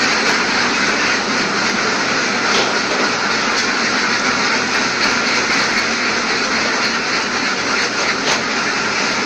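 Steady mechanical running noise from an automatic egg collector for duck cages, its rod elevators and conveyors running, with a few faint light clicks.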